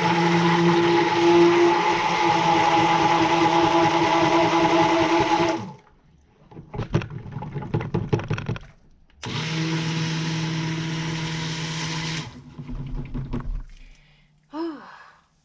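Stick blender running in cold process soap batter in a plastic jug, mixing in mica colourant, in two runs. The first lasts about five and a half seconds and the second about three seconds, with knocks of the blender against the jug in the pause between them.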